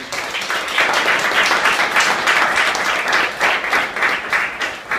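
An audience applauding: many hands clapping, starting all at once and thinning out near the end.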